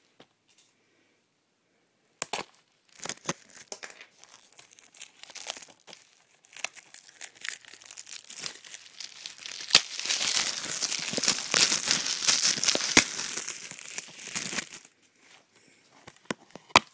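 Plastic shrink-wrap being torn and crinkled off a Blu-ray case. After a short quiet start come scattered crackles, then a dense stretch of crinkling lasting about five seconds, which then dies down.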